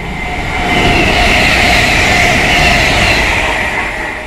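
A train passing close by on the tracks: loud rolling rail noise with a hissing edge that builds about a second in and eases off near the end.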